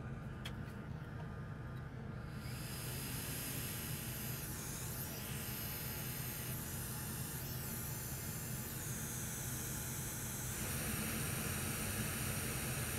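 Bench fume extractor fan running steadily, a low whir under an airy hiss. A louder high hiss joins about two and a half seconds in and grows a little stronger near the end.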